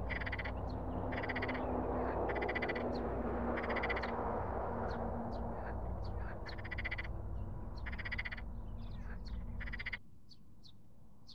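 Frogs croaking from the reeds: a string of short rattling calls, each a fast run of pulses, coming roughly once a second. Underneath runs a steady low rushing noise that stops abruptly about ten seconds in.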